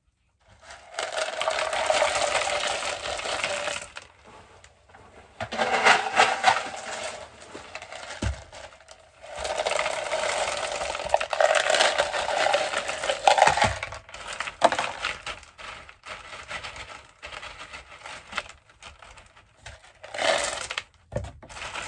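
LECA expanded clay pebbles poured from a plastic cup into a plastic plant pot, rattling in several separate pours. Scattered clicks of single pebbles come between the pours.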